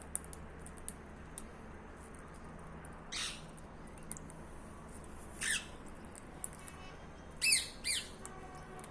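Pet parrot squawking: four short calls, each falling in pitch, the last two close together near the end, with faint small clicks in between.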